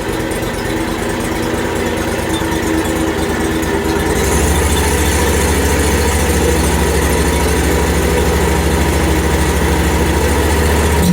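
Portable bandsaw mill's gas engine warming up at a steady run, its speed and loudness stepping up about four seconds in and holding there.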